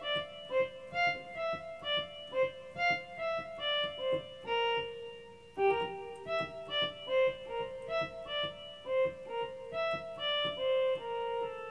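Electronic keyboard playing a single-note melody line in F, a quick run of short notes with a few longer held ones: the opening riff of a duranguense tune, played slowly for teaching.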